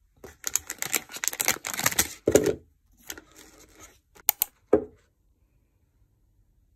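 Plastic wrapper of an ice-cream bar being torn open and crinkled: a dense run of tearing and rustling for about two seconds, then a few sharp crinkles, ending about five seconds in.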